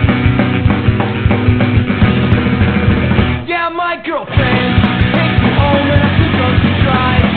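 Loud punk rock music with singing. The band drops out for about a second midway while the voice carries on, then comes back in.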